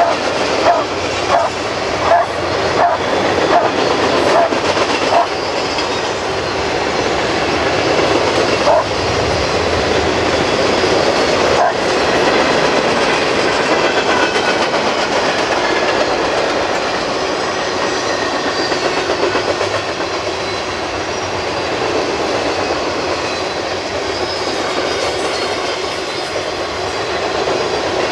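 Freight cars rolling past on steel wheels: a steady rumble and rattle of wheels on rail, with a rhythmic clickety-clack over the rail joints through the first few seconds.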